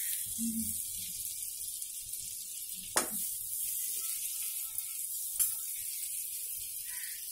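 Butter melting and sizzling in a hot kadai, a steady hiss, with a steel ladle clicking against the pan twice, about three seconds in and again a little after five seconds.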